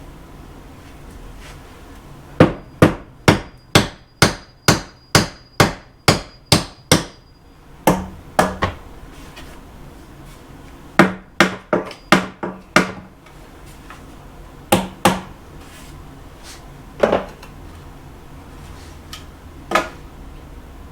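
Hammer blows on a wooden 2x4 stud, knocking its top over to set it in place: a quick run of about a dozen strikes at roughly two a second, then shorter groups of two to five with pauses, and a couple of single blows near the end.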